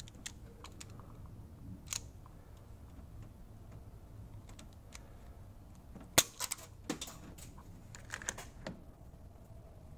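Scattered clicks and snaps of an automatic wire stripper working on wire ends, the sharpest snap about six seconds in and a short run of clicks around eight seconds.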